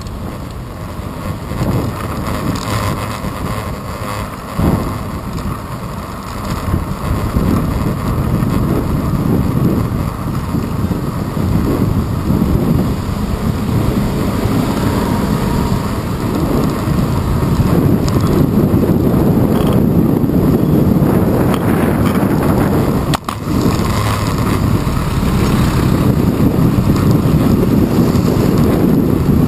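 Wind buffeting the microphone of a handlebar-mounted action camera on a moving bicycle, mixed with the rumble of city road and traffic noise. It grows louder in the second half and drops out for an instant about two-thirds of the way in.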